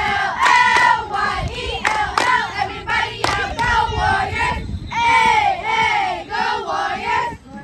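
A squad of girl cheerleaders chanting a cheer together in rhythmic shouted phrases, with a few sharp claps in the first few seconds.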